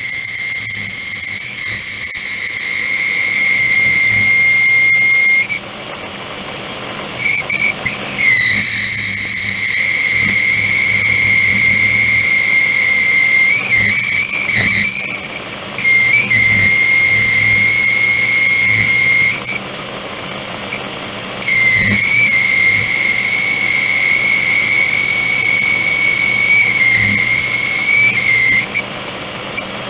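Metal lathe boring out a hole in a steel part: the machine runs with a steady hum while the boring tool cuts with a high, steady whistling squeal that breaks off and starts again several times as the cut is interrupted.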